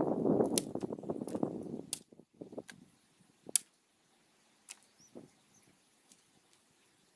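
Dry brush and twigs rustling for about two seconds, then a few scattered sharp snaps and clicks.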